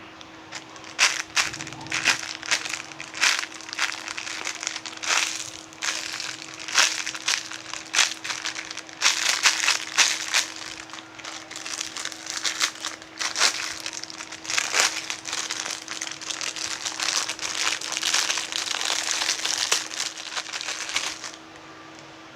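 Plastic packaging crinkling and crackling as it is handled and squeezed, in quick irregular bursts that stop suddenly about a second before the end, over a faint steady hum.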